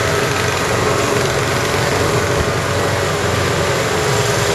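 Off-road buggy engine running steadily while driving along a dirt trail, heard from on board the buggy.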